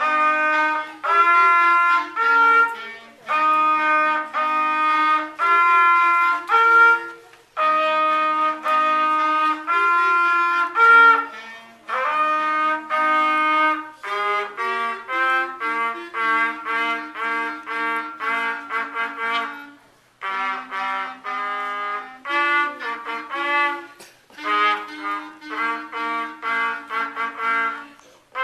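Two saxophones playing a duet, a lower part under a higher melody, in short repeated phrases of separate notes with brief pauses between them.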